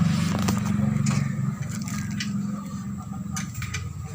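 Car engine idling with a steady low hum that drops in level about a second and a half in, with a few light metallic clicks over it.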